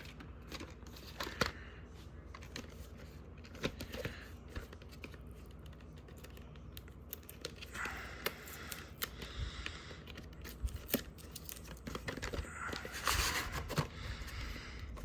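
VHS packaging being handled: scattered small clicks and taps, with two longer stretches of rustling or tearing of paper or plastic about eight and thirteen seconds in.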